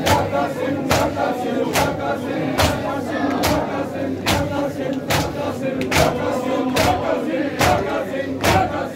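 Crowd of mourners doing matam, beating their chests in unison with a sharp slap a little more than once a second, over their loud group chanting.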